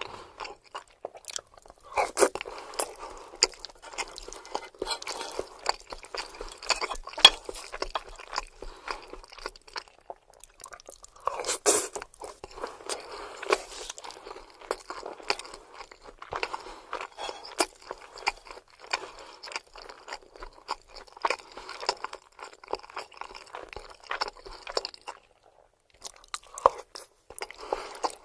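Close-miked eating sounds of a person eating lasagna: chewing and biting with many sharp clicks and crunches, pausing briefly near the end.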